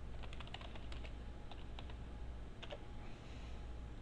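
Computer keyboard typing: a quick run of keystrokes just after the start, then a few separate key presses spread through the rest, over a faint low hum.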